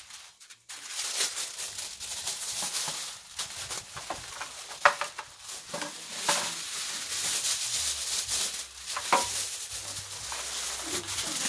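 Aluminium foil crinkling and rustling as it is lifted, folded and pressed around beef ribs in a metal baking tray, with a few sharper clicks.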